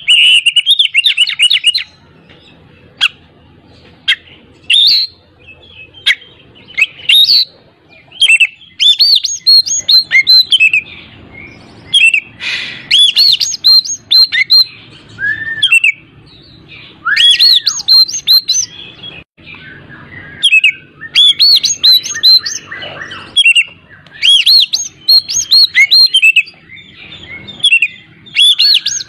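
Oriental magpie-robin singing: loud bursts of rapid, looping chattering notes, broken by short pauses, with a few slower slurred whistles mixed in.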